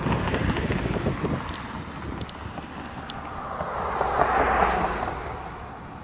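Wind buffeting the microphone as a low, uneven rumble, with a brief swell of noise about four seconds in.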